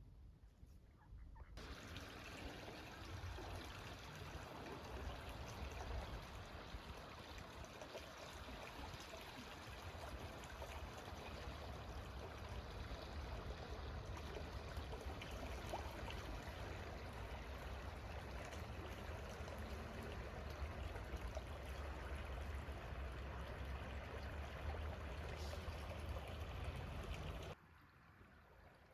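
River water flowing and trickling, a steady rushing with a low rumble underneath; it starts abruptly about a second and a half in and cuts off just before the end.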